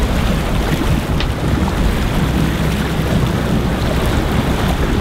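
Wind buffeting the microphone over water rushing past a moving boat and the low, steady rumble of its engine.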